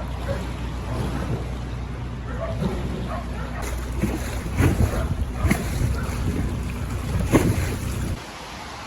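Narrowboat's diesel engine running with a steady low hum, under wind and water noise and a few sharp knocks. The hum cuts off suddenly near the end.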